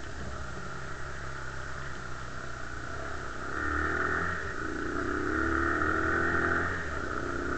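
Bashan 250 quad's 250 cc engine running while riding, revving up about three and a half seconds in, climbing a little in pitch and getting louder, then easing off near the end.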